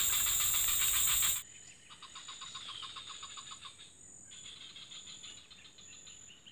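Forest insect chorus: a steady high-pitched hum with a rapid pulsing chirp. It is loud for about a second and a half, then drops suddenly to a much fainter pulsing chirp with a short bird-like call.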